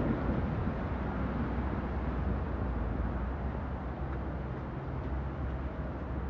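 Steady city traffic noise: a low rumble with the hiss of tyres on wet, slushy streets.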